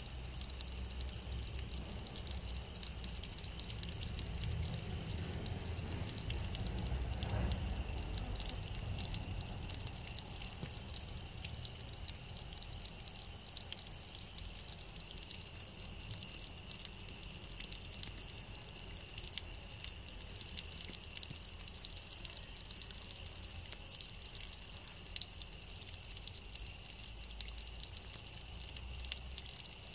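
Water trickling and dripping down a wet stone wall: a steady hiss with scattered small drip ticks, under a low rumble that is loudest about seven seconds in.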